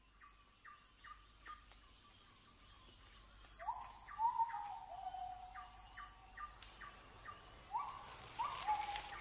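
Birds calling: a run of short repeated chirps, then from about three and a half seconds a louder series of notes that each jump up and slide down, over a faint steady high whine. A rustle sets in near the end.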